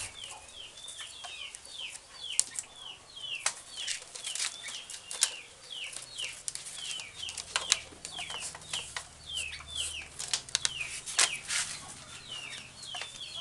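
Chicks peeping over and over, short falling cheeps several a second, with scattered sharp clicks and scrapes from a rattan strip being pulled and wrapped around a bamboo joint.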